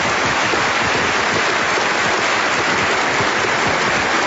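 Large audience applauding in a standing ovation: dense, steady clapping that holds at one level throughout.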